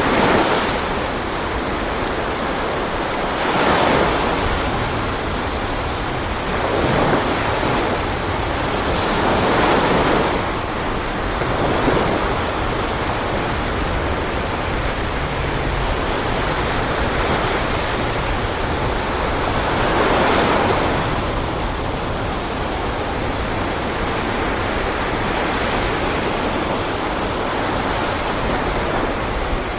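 Sea waves washing with wind: a steady rush of water noise that swells and eases every few seconds.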